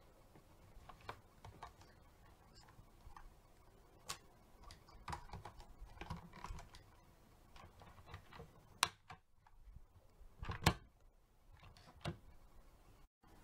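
Light plastic clicks and clatters from a toy front-loader garbage truck as its lift arms and forks are worked by hand, raised over the cab and lowered again. They come at irregular intervals, with two louder clacks in the second half.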